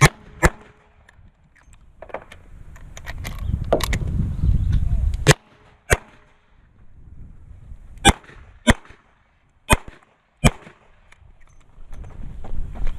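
Smith & Wesson Model 66 revolver firing in IDPA competition: sharp shots, mostly in pairs about half a second apart, with longer pauses between the pairs.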